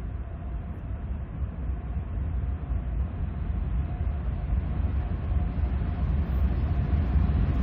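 Diesel locomotives leading a CSX intermodal freight train approach with a steady low engine rumble that grows gradually louder.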